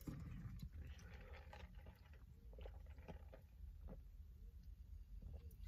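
Faint sipping of soda through a drinking straw and swallowing, with a few small mouth clicks about two and a half to four seconds in, over a low steady hum.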